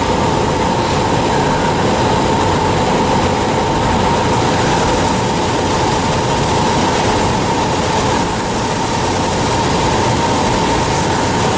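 DAMA HDC-2020 high-speed drilling center surface milling: the spindle and milling cutter run steadily in a dense machining noise with a steady tone around 1 kHz. A thin, high whine joins about five seconds in.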